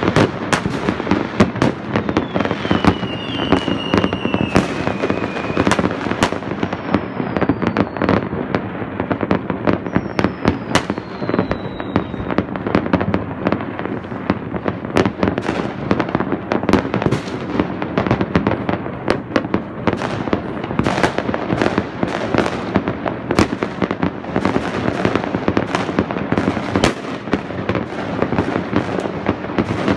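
A continuous barrage of New Year's Eve fireworks, with many bangs and crackles overlapping without a break. In the first half a few whistling fireworks glide down in pitch.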